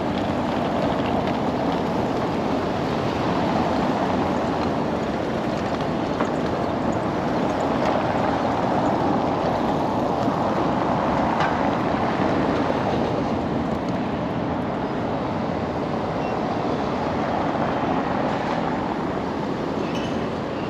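Steady street traffic noise, cars driving around a cobbled roundabout, swelling gently up and down.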